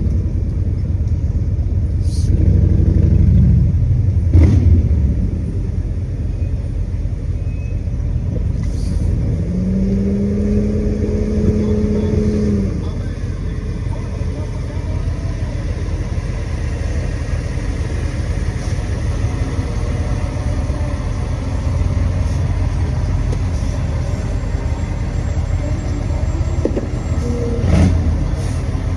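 Steady low road and engine rumble inside a moving car's cabin, with a few short knocks. A steady pitched tone sounds for about three seconds near the middle.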